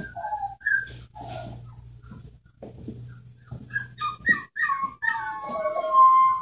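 Rhodesian ridgeback puppies whimpering: short high whines and yips, then a longer drawn-out whine near the end that falls in pitch.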